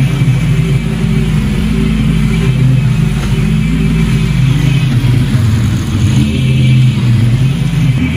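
Bad Boy zero-turn riding mower running steadily under load while cutting overgrown grass, its engine hum shifting slightly in pitch as the mower turns.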